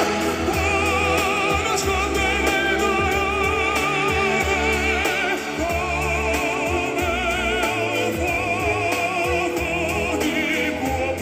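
Music: an operatic-style voice singing long notes with wide vibrato over a sustained accompaniment.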